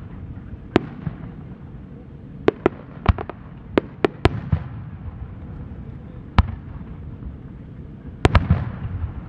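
Aerial firework shells bursting overhead: a dozen or so sharp bangs at uneven intervals, bunched about three to four seconds in and again near the end, over a steady low rumble.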